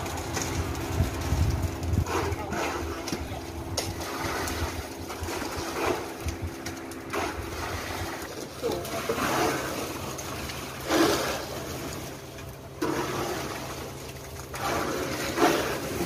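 Concrete mixer truck running steadily, its engine and turning drum giving a constant hum, while wet concrete is pushed down the steel chute with irregular scraping and sliding sounds every few seconds.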